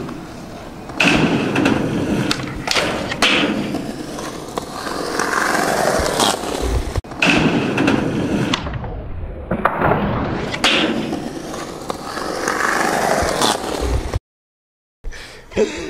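Skateboard wheels rolling on concrete on repeated trick attempts, the rumble swelling and fading, broken several times by the board slamming and clacking down. The sound drops out for a moment near the end.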